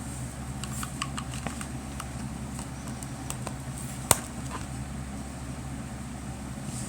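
Steady low mechanical hum in the room, with light clicks from a small plastic device being handled and one sharp click about four seconds in.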